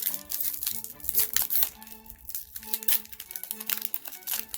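Foil wrapper of a Pokémon booster pack crinkling and crackling as it is handled and torn open, over background music with held notes.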